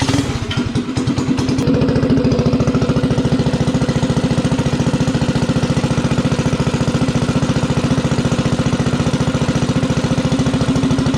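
Stage 3 single-cylinder mini bike engine idling just after a start, with an even rapid firing pulse. The idle picks up slightly over the first two seconds, then holds steady as it warms up on a freshly rejetted carburettor.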